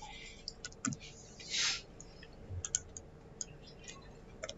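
Computer mouse clicking: a handful of sharp, scattered clicks, with a short breathy hiss about one and a half seconds in, over a faint steady hum.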